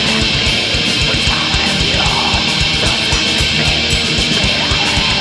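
Black metal band recording: a dense wall of distorted electric guitars over rapid, evenly spaced kick-drum strokes and cymbals, loud and steady.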